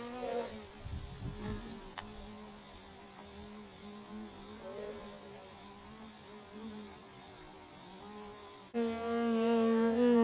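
Honeybees buzzing, a faint steady wing hum for most of the time; about nine seconds in it turns suddenly much louder and fuller as a bee flies right up close.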